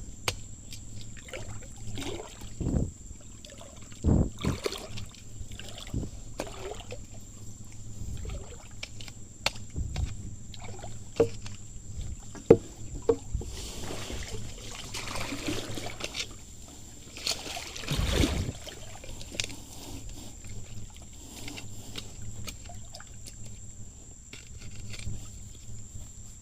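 Shallow water sloshing and splashing, with scattered irregular knocks and clicks, while blood cockles are being gathered. There are two longer splashing stretches about two-thirds of the way in.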